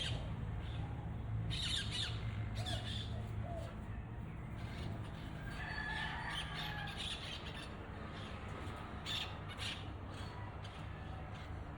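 Wild parrots squawking: harsh calls in scattered bouts, over a steady low hum.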